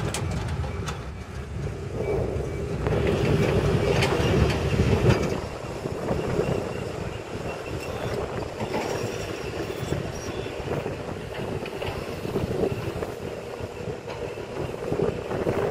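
Sumitomo SH210 excavator's diesel engine and hydraulics running steadily under load as the boom swings and the bucket works, with a louder stretch of about three seconds starting some two seconds in.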